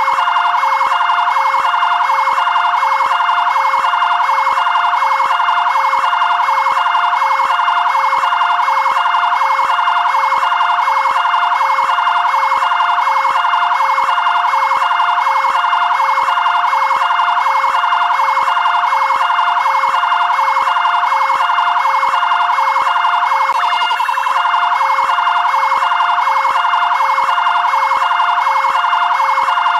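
Fire brigade area-command vehicle's two-tone siren sounding continuously, switching rapidly and evenly back and forth between a lower and a higher note.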